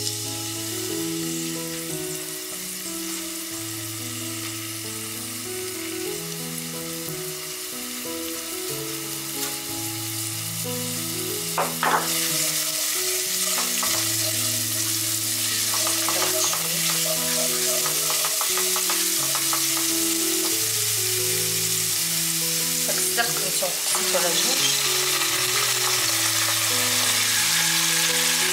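Garlic frying in olive oil in a pan: a steady sizzle while a utensil stirs, louder from about twelve seconds in after a few clicks. Slow background music plays underneath.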